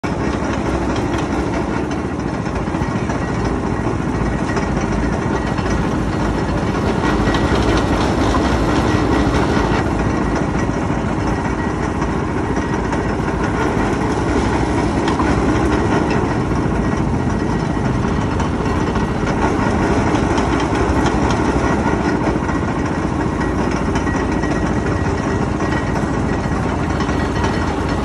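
Motor-driven sugarcane juice press running steadily, its rollers crushing cane stalks that are fed through by hand.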